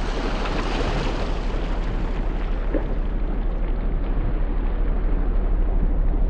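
Toyota Land Cruiser 80 Series fording a shallow creek at speed: a loud, steady rush of water thrown up by the tyres, over a low steady engine rumble. The spray reaches the camera near the end.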